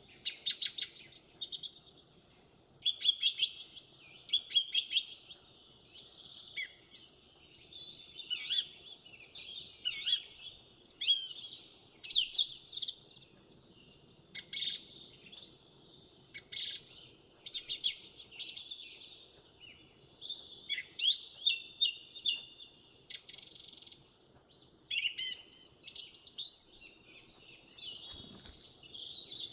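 House finches singing: a steady run of high, warbled, twittering phrases, one after another with short gaps.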